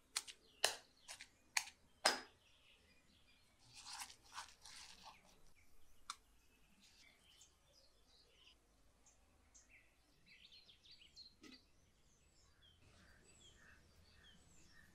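Stone pestle pounding ginger and garlic into paste in a stone mortar, sharp strikes about two a second that stop about two seconds in. A short run of scraping follows, then small birds chirping faintly.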